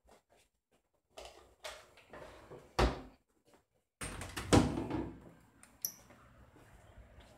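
A few scattered knocks and bumps, the loudest about three seconds in and another about four and a half seconds in. Faint room noise comes in suddenly about four seconds in.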